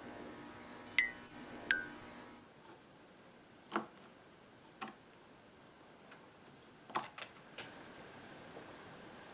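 Sparse sharp ticks and clicks, about seven in all, from a small hand blade working a strip of wooden molding on a workbench. The first two ring briefly, over a faint hum that stops about two and a half seconds in.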